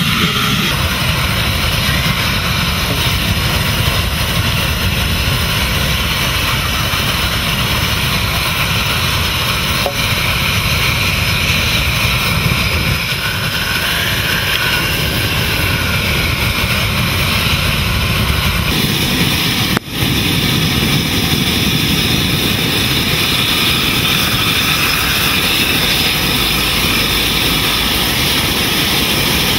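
A steady, loud mechanical drone that does not change, broken only by a brief dropout about twenty seconds in.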